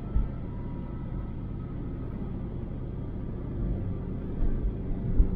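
Car cabin noise while driving at highway speed on concrete pavement: a steady low rumble of engine and tyres. Several short low thumps come through, mostly near the end.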